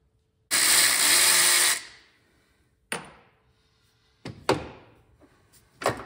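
A cordless power tool runs for just over a second, backing out a 10 mm bolt on the A/C dryer clamp. It is followed by three separate sharp knocks.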